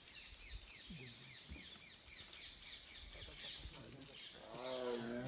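Birds calling faintly in dry forest, a quick run of short falling chirps repeated about three to four times a second. Near the end a louder, long, low call with a wavering pitch starts up over them.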